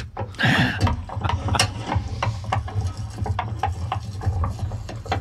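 Metal potato masher working boiled potatoes in a metal pot: a run of irregular wet clacks and knocks, several a second.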